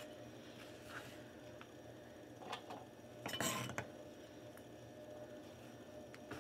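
Chef's knife slicing cherry tomatoes on a wooden cutting board: a few faint taps of the blade on the board, with a louder run of quick cuts about three and a half seconds in.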